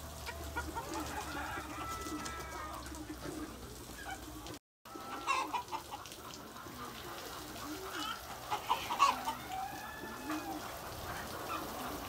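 Chickens clucking and calling, many short calls overlapping, with a few louder calls later on.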